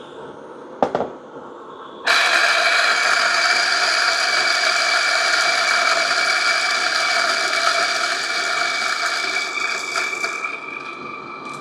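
A Turin DF54 flat-burr electric coffee grinder grinding a 10 g dose of coffee beans: a click about a second in, then the motor and burrs start suddenly about two seconds in with a loud, steady whirring whine. About ten seconds in it quietens as the beans run through, the motor still running.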